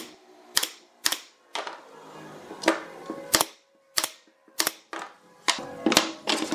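Pneumatic brad nailer firing brads into a pine frame joint: a series of about ten sharp shots, each a fraction of a second long, spaced roughly half a second to a second apart.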